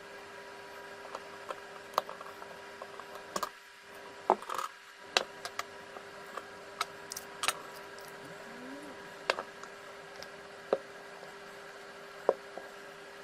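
Scattered sharp clicks and light knocks of parts and tools being handled, about a dozen in all, over a steady faint hum.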